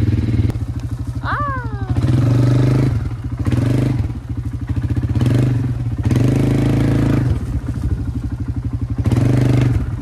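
A quad-bike (ATV) engine running under way. Its note repeatedly swells as the throttle opens and drops back to a slower, pulsing chug as it eases off.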